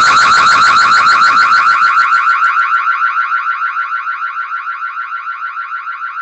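Electronic alarm siren warbling rapidly, about six cycles a second, fading steadily. A low rumbling noise lies under it for the first couple of seconds.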